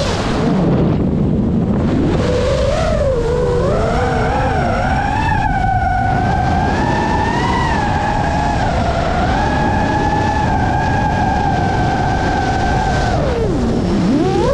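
FPV quadcopter's electric motors whining over a rush of air. The pitch falls sharply as the throttle is cut at the start, climbs back, holds fairly steady, then dips and rises again near the end as the throttle is punched.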